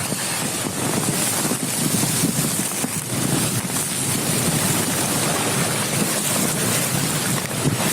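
Steady rushing noise of wind and waves, with wind buffeting the microphone.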